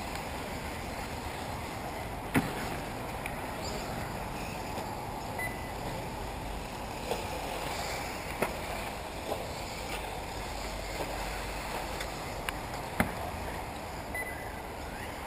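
1/8-scale electric RC off-road buggies racing: a steady low noise with scattered sharp knocks and clatters, the loudest about two and a half seconds in and again about thirteen seconds in.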